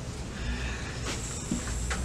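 Quiet room tone with a steady low hum and a few soft knocks and rustles as a person sits down at a table.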